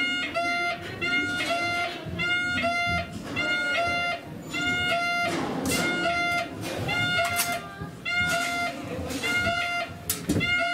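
Electronic alarm beeping at one steady pitch, about two short beeps a second without a break: the warning tone of a passenger emergency button having been pressed on a train. Faint hall murmur and voices lie under it.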